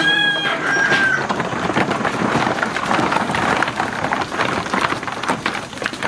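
A herd of goats and sheep running down a wooden slatted ramp, many hooves clattering on the boards in a dense patter. A high, held call with an overtone lasts about a second near the start.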